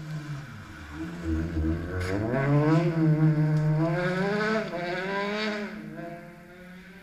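Rally car approaching fast on a gravel stage, its engine revving hard and climbing in pitch as it gets louder. The pitch dips briefly, climbs again, then drops near the end as the car comes off the throttle.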